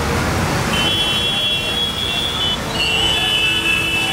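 Heavy road traffic: a steady rumble of engines and tyres, with vehicle horns honking in long blasts, one starting about a second in and another just before the end.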